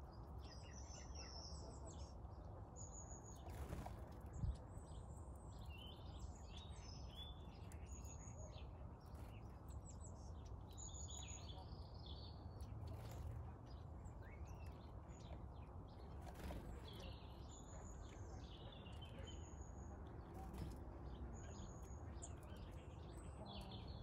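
Faint garden birdsong from small songbirds: scattered high chirps and twitters, with one short high note repeated every couple of seconds, over a steady low background rumble.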